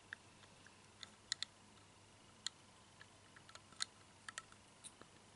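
Faint, sharp, irregular clicks and ticks, about a dozen, from a 1:64 diecast model van being turned over in the fingers, with near silence between them.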